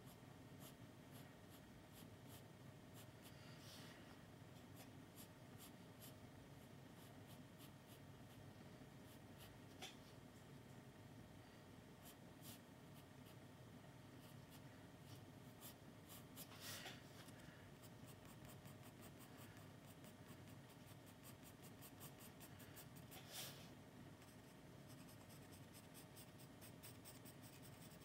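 Faint scratching of a graphite pencil on sketchbook paper, short strokes coming in quicker runs in the second half as the drawing is shaded and lined.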